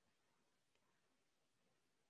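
Near silence: a faint, even hiss of a quiet recording.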